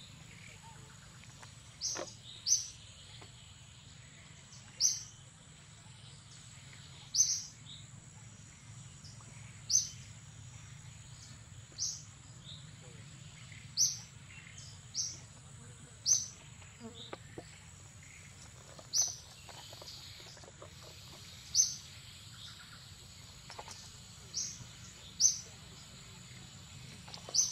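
Forest ambience: a bird giving short, sharp, high chirps every two seconds or so, over a steady high-pitched insect drone.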